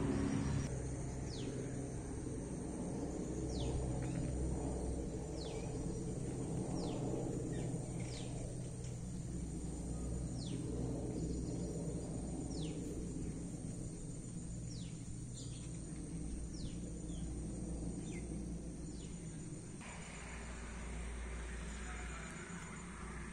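Outdoor plantation ambience: a bird repeats a short, falling whistled call every second or two over a steady low rumble, with a faint high insect trill; the bird calls stop near the end.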